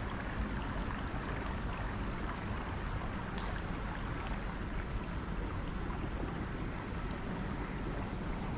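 Steady rush of river water, with a low rumble underneath and a few faint ticks.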